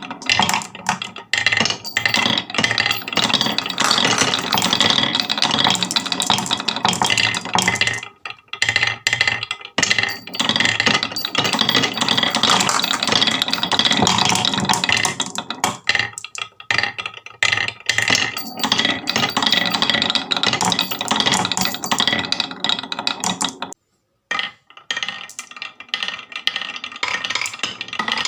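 Many marbles rolling and clattering down a wooden marble run in a dense, continuous rattle of clicks and knocks. It dips briefly about eight seconds in and cuts out for a moment near the end.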